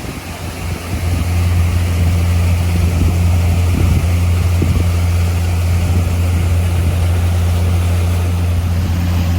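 Pontoon boat's engine running steadily under way, its low hum rising to full loudness about a second in, over the rush of water and wind.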